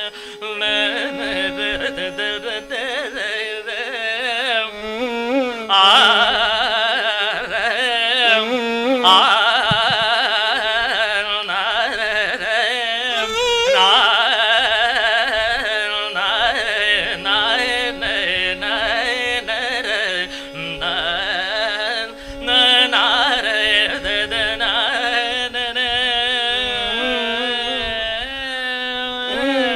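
Carnatic classical music in raga Todi: a melody heavily ornamented with sliding, oscillating gamakas on voice and violin over a steady drone, with a few sharp mridanga strokes.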